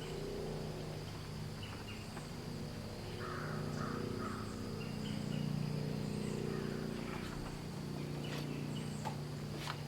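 Outdoor ambience: a steady high insect drone, scattered short bird chirps and a low steady hum.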